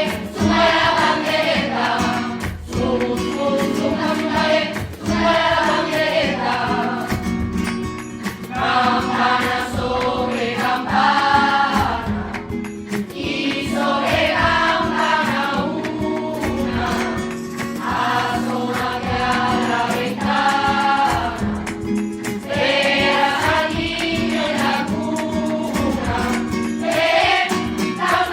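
A choir singing a Spanish Christmas carol (villancico) in phrases of a few seconds each, over sustained instrumental accompaniment.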